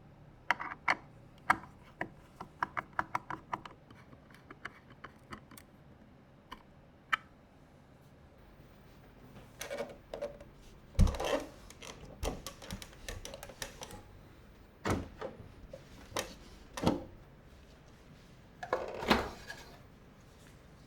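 Handling noises of computer parts being fitted together: a quick run of light clicks in the first few seconds, then heavier knocks and thunks, the loudest about eleven seconds in.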